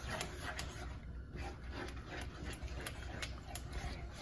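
Wooden spoon stirring thick, creamy sauce in a skillet, in quick repeated strokes, a few a second.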